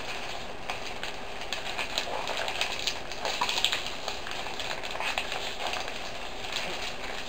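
Plastic snack packets crinkling and rustling as hands dig through a cardboard box of snacks, in irregular crackles over a steady background hiss.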